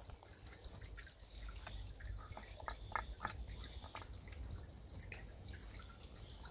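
Faint, irregular clicks and taps, clustered in the first half, from a Dalmatian nosing tennis balls about in a metal muffin tin to get at the treats beneath them, over a low steady rumble.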